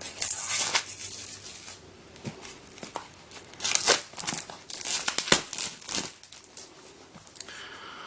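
Packaging being opened by hand: irregular crinkling and tearing bursts as the wrapping of a small boxed fidget toy is pulled open.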